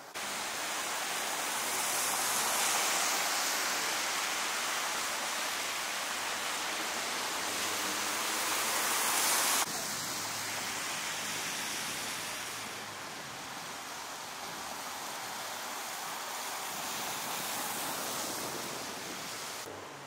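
Steady rushing hiss of outdoor ambience in wet snowfall. It drops suddenly about ten seconds in; after that, car tyres hiss on the wet, slushy street under a faint low traffic rumble.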